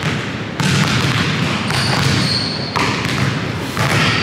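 Basketballs bouncing on a hardwood gym floor over a steady rushing background noise that changes abruptly a couple of times.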